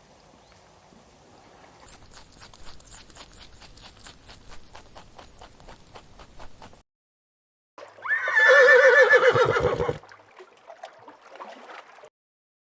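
Horse hooves clip-clopping in a steady rhythm, about five beats a second. After a brief break, a horse neighs loudly for about two seconds with a wavering, quavering pitch, followed by a few more faint hoof clops.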